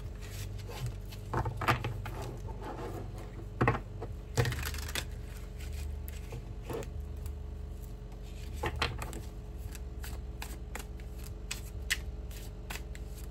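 Tarot cards being handled and shuffled by hand: scattered soft taps and flicks of card stock, a few sharper ones in the first five seconds, over a low steady room hum.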